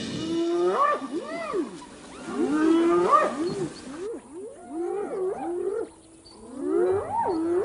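Spotted hyenas whooping: a series of pitched calls, each swooping up and falling back, in four bouts with short gaps between them.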